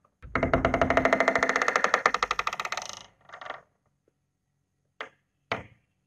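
Old wooden door creaking on its hinges for about two and a half seconds, a rapid stuttering creak. Two short knocks follow near the end, about half a second apart.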